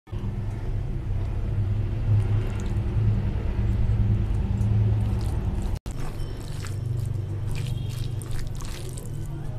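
Fingers mixing mutton biryani rice with gravy, giving wet squishing and squelching that is sharpest about seven to nine seconds in. A steady low rumble is the loudest sound throughout.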